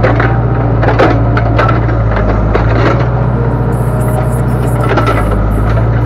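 Backhoe loader's diesel engine running steadily under load while the backhoe works, with scattered knocks and clunks as soil is pushed back into a pit.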